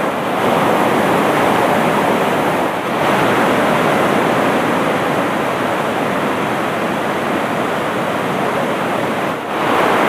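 Steady loud rush of river water pouring over and between granite boulders in shallow rapids, dipping briefly three times.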